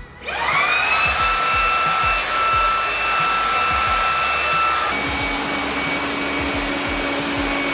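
Xiaomi Mijia 1C cordless stick vacuum on max mode: its motor spins up with a rising whine and then runs at a steady high pitch. About five seconds in, the sound switches abruptly to the steadier, lower hum of a Xiaomi Mi robot vacuum running on max mode.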